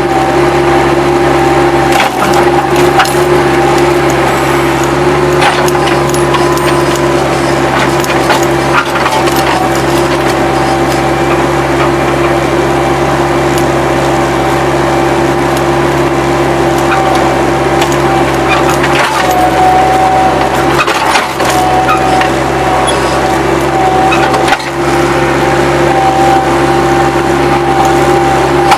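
Bobcat 763 skid-steer loader's diesel engine running steadily, with scattered clicks and crackles of dirt and grit scraping under the bucket.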